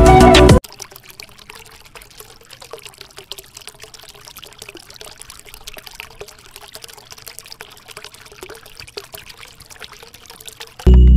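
A thin stream of water pouring from a miniature hand pump's spout and splashing into a small basin, quiet and steady with small crackling splashes. Background music stops about half a second in and returns near the end.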